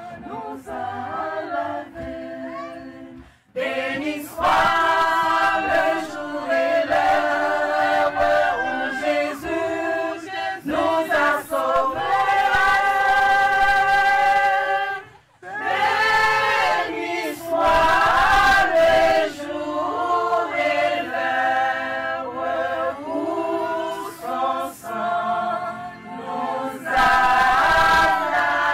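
Choir singing, with held notes and two short breaks, one about three seconds in and one about fifteen seconds in.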